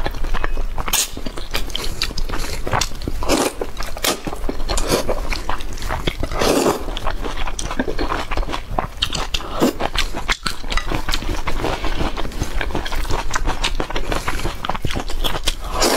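Close-miked eating sounds: biting and chewing soft, saucy food, with a steady run of short wet mouth clicks and now and then a louder smacking mouthful.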